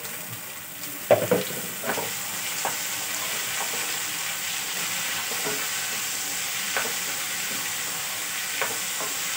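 Chopped tomatoes and vegetables sizzling as they fry in a pan, stirred with a wooden spatula. There are a couple of loud knocks about a second in, then lighter taps and scrapes every second or so over the steady sizzle.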